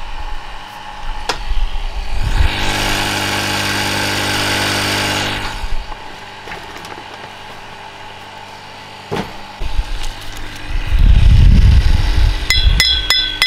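A vehicle engine idling steadily with a low hum. About two seconds in, a loud hissing rush starts and lasts about three seconds. Near the end comes a loud low rumble, then a quick string of sharp metallic clinks that ring.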